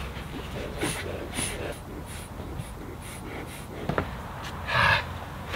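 A person breathing hard, with a string of short scuffs and squeaks of rubber about twice a second as he jumps on an ATV tire to break its bead. There is a louder breathy rush near the end.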